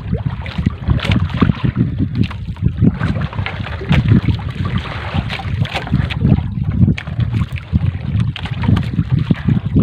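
Wet trammel net being hauled by hand over a boat's gunwale, water splashing and dripping off the mesh, with irregular splashes and patters over wind buffeting the microphone.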